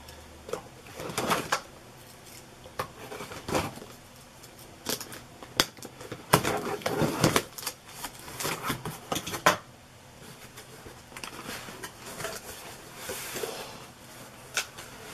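A cardboard shipping box being opened by hand: flaps pulled back, with cardboard scraping and crinkling in irregular rustles and a few sharp clicks, busiest in the middle.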